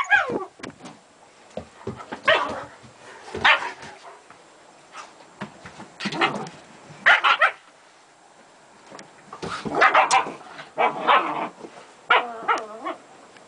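German Shepherd dogs barking in play: short barks at irregular intervals with pauses between, several in quick succession about ten seconds in.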